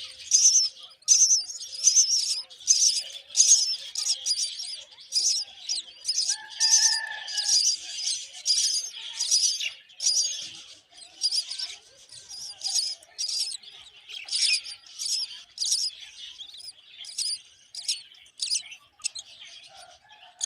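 Myna nestlings begging for food: high-pitched rasping calls repeated about twice a second, growing a little sparser in the second half, with one short lower call about six seconds in.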